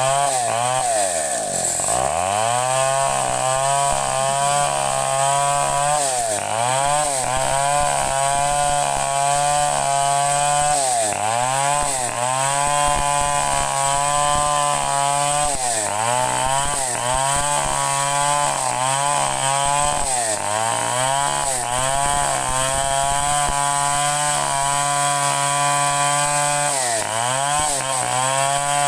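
Two-stroke chainsaw running at high revs, its pitch repeatedly dipping briefly and recovering every second or few.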